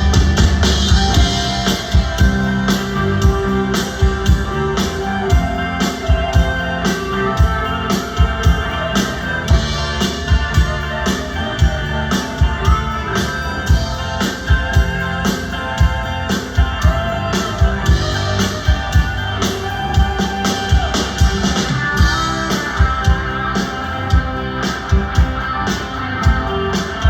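A band playing rock music with electric guitar over a steady drumbeat.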